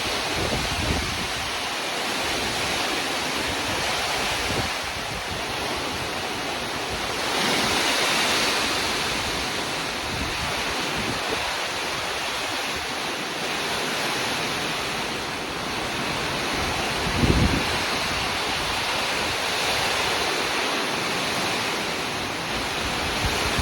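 Heavy rain falling steadily with wind, swelling louder about eight seconds in. A brief low thump about seventeen seconds in.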